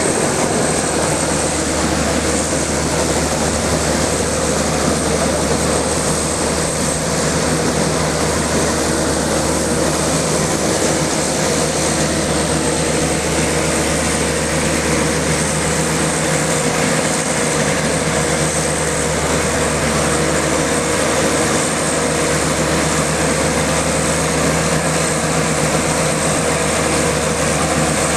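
SBS-8 mortar pump spraying machine running continuously, a loud even mechanical drone with a steady hum and a faint high whine, never changing or stopping.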